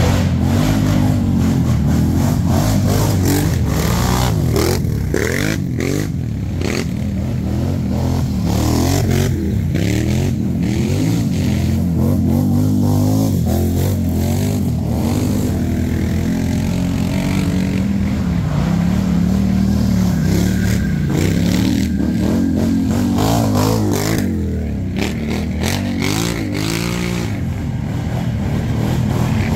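ATV engine running and revving up and down repeatedly as it is ridden, with scattered knocks and rattles.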